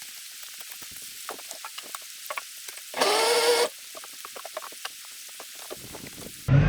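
Soft hiss with many small irregular ticks, like trickling or dripping water. About three seconds in comes a brief, louder pitched sound that rises slightly. Just before the end the jet boat's Yamaha four-stroke engine comes in suddenly and loud.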